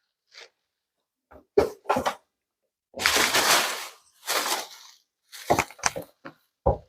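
A packaging bag being pulled out from under a heavy appliance. There are two bouts of crinkly rustling in the middle, with scattered knocks and clicks of handling before and after.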